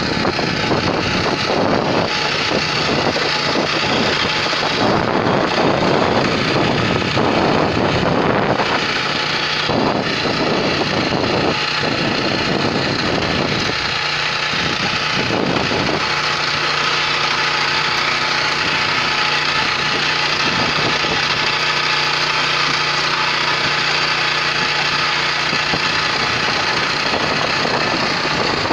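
WEIMA 1000N walk-behind tiller's single-cylinder engine running steadily under load while its rotary tines work the soil. The sound is rougher and noisier in the first half and evens out from about halfway.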